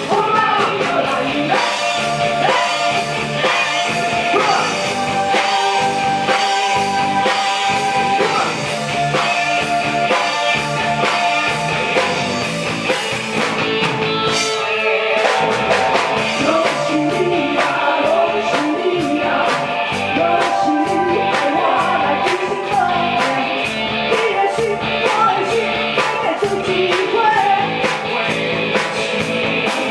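Rock band playing a song with a singer over a steady drum beat.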